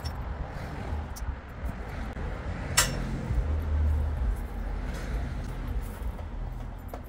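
A single sharp metallic clink about three seconds in, from the ratchet strap's hardware being handled at a steel hand truck, over a steady low rumble.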